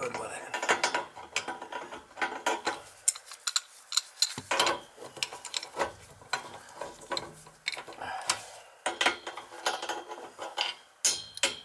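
Adjustable wrench working the brass compression nuts of a 1-inch compression ball valve on copper pipe as they are tightened: an irregular run of sharp metallic clicks and scrapes.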